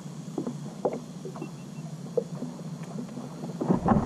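Ambient sound on a plastic fishing kayak through an action camera's microphone: a steady low hum with scattered light knocks and taps as the angler moves on the deck. Near the end a much louder low rumble rises suddenly.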